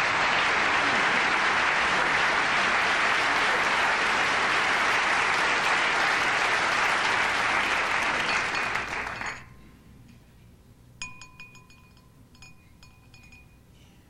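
Studio audience applauding for about nine seconds, then dying away. A few light clinks of glass wine goblets follow, each ringing briefly.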